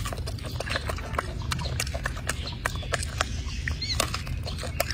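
Golden snub-nosed monkey chewing a piece of apple close up: irregular crisp crunching clicks, several a second, over a steady low rumble.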